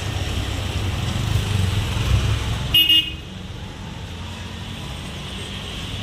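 Road traffic with engines running, and a short vehicle horn toot just before three seconds in. After that the traffic noise drops to a quieter, steady background.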